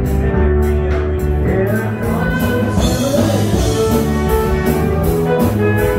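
Music with singing over a steady beat of about two strikes a second.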